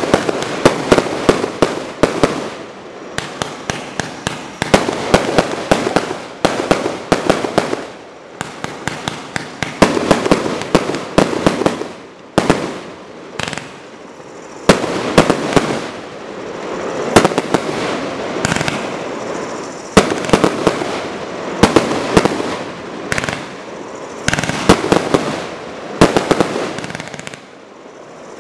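Single-ignition firework barrage cake firing volley after volley. Each volley is a rapid string of sharp cracks and crackles lasting a second or two, with brief lulls between volleys.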